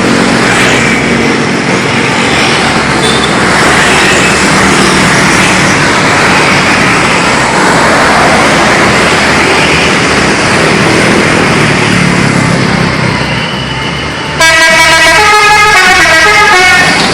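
A loud, steady rush of noise; then, about fourteen seconds in, a bus's telolet horn (a multi-tone musical air horn) plays a quick run of changing notes, louder than the noise before it.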